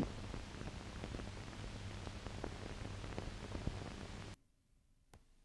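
Faint hiss and scattered crackles of an old 16 mm film soundtrack over a low hum, cutting off suddenly about four seconds in to near silence, with one more faint click near the end.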